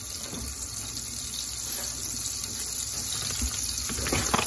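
Melted butter sizzling steadily in a stainless steel pot on the stove. A brief knock comes near the end.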